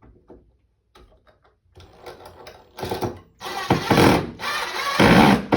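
Power drill running in two long bursts with a short pause between, driving screws for a window-blind mounting bracket, after a few faint clicks.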